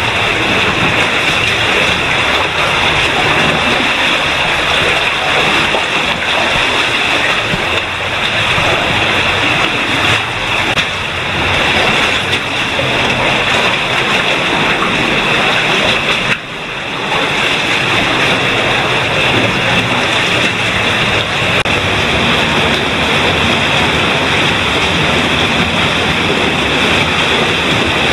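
Cave stream running through a rock passage: a steady, loud rush of flowing water, briefly dipping about halfway through.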